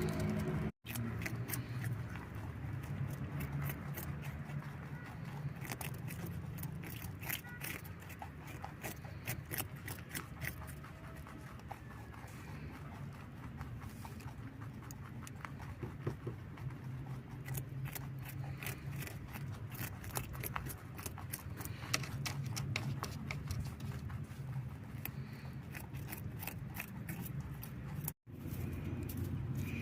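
Rabbit chewing raw carrot and cucumber: rapid, crisp crunching clicks over a steady low hum.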